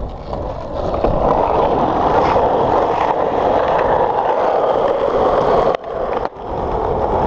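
Skateboard wheels rolling on concrete, a steady rumble that breaks off for a moment about six seconds in as the board leaves the ground for a trick.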